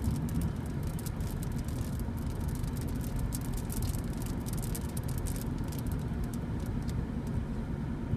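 Inside a moving car: the steady low rumble of engine and road noise, with a faint steady hum and many scattered light ticks.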